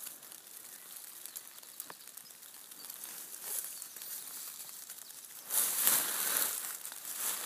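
Footsteps rustling through dry fallen leaves on the forest floor, from a dog working a track and the person following it. Faint at first, then louder from about five and a half seconds in.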